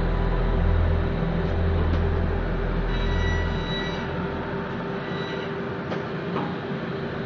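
Factory machinery running: a steady mechanical hum and rush with several constant tones. A brief high whine comes in about three seconds in and again about five seconds in, and the low hum drops away in the second half.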